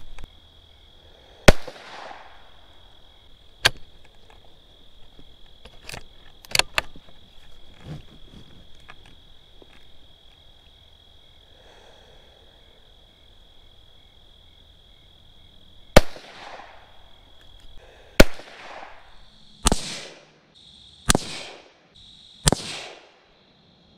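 Six shots from a Savage 93R17 .17 HMR bolt-action rifle, each a sharp crack with a brief echo: one about a second and a half in, then after a long pause five more in quick succession, about a second and a half apart. A few lighter clicks fall between the first shots, and insects buzz steadily at a high pitch behind.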